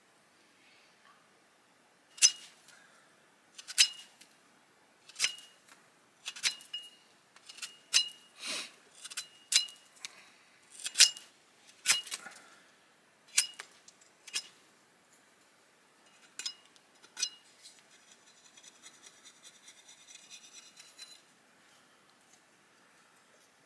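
Sharp clinking strikes of hand-held stone on stone, about a dozen of them a second or so apart, each with a brief ring. Near the end comes about three seconds of quick rasping scraping.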